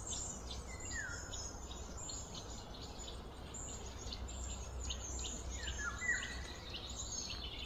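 Birds chirping with insect calls over a low steady hum, with a short falling call about a second in and another about six seconds in.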